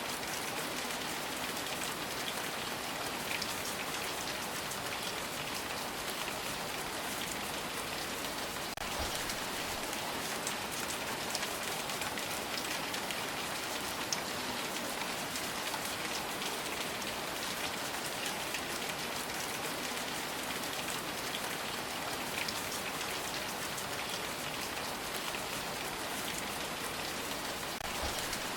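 Steady rain falling on a surface, an even hiss with scattered individual drop ticks and an occasional louder drip.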